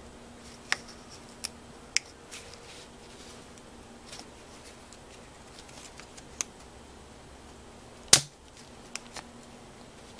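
Scattered sharp clicks and knocks of hard plastic and metal parts being handled as a sawn-through electronic EGR valve is worked open. The loudest is a single knock about eight seconds in, over a faint steady hum.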